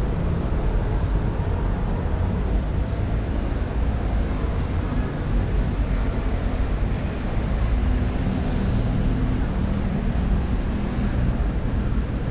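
Street ambience dominated by a steady low rumble of vehicle engines running.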